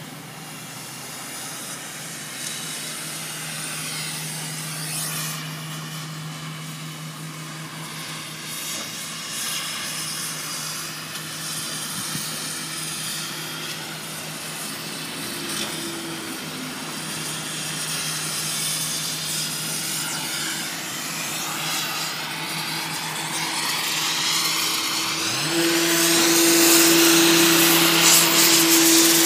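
A motor or engine running steadily with a low hum and a hiss over it. About 25 seconds in it rises briefly in pitch and gets louder.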